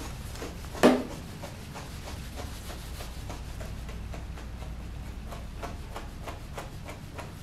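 Grooming brush rubbing and scratching through a schnauzer's matted coat in repeated short strokes, brushing out mats, with one louder stroke about a second in.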